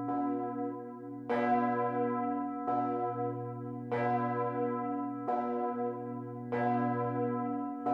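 A 2.3-tonne cast-steel Bochumer Verein bourdon church bell, swung full circle by hand with ropes, its clapper striking about once every 1.3 s. Strokes alternate between stronger and weaker, and each rings on over a steady low hum.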